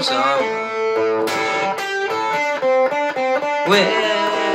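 Semi-hollow-body electric guitar playing a blues lick of single notes stepping between pitches, then a man's voice comes in near the end singing the held word "lonesome" over the guitar.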